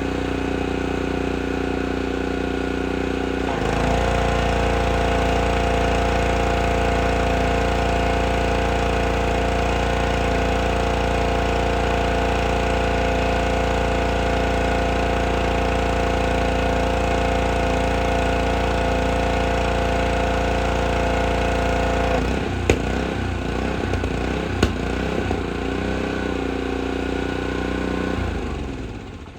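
Honda GCV190 single-cylinder overhead-cam engine on a Craftsman pressure washer running steadily. About four seconds in its note shifts and gets louder as the pump is put under load by spraying. Past the two-thirds mark it comes off load and its note wavers, a slight surge with no load on it, with two sharp clicks before the sound dies away at the very end.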